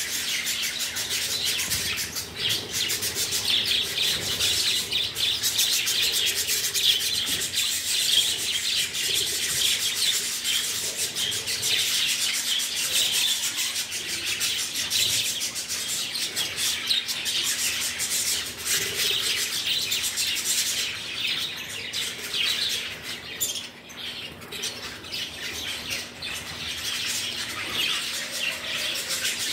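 A large flock of budgerigars chattering and warbling without a break, with many overlapping chirps. It thins briefly about three quarters of the way through.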